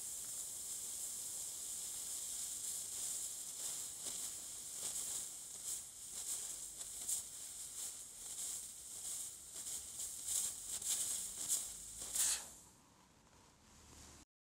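CryoPen cryosurgery pen releasing a fine jet of nitrous oxide onto a plantar wart to freeze it: a steady high hiss, with short irregular rasps from about four seconds in as the applicator tip scrapes away the frost forming over the lesion. The hiss cuts off about twelve seconds in, ending the freezing application.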